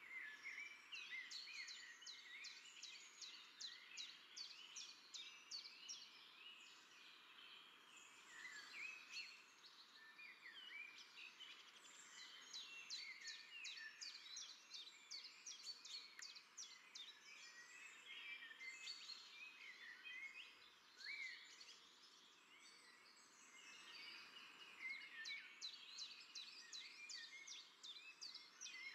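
Faint, busy chorus of many small birds chirping and twittering, in dense overlapping calls that swell and thin out in waves.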